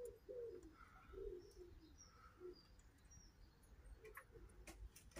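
Faint cooing of a pigeon: a short run of soft low notes in the first couple of seconds, fading out, with a few faint clicks later.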